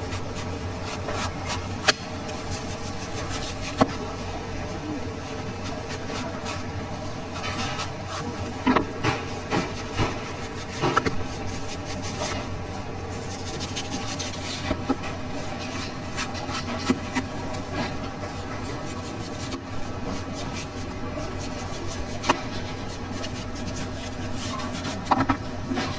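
A kitchen knife slicing and scraping the rind off a whole watermelon, with irregular sharp clicks of the blade and a steady background hum.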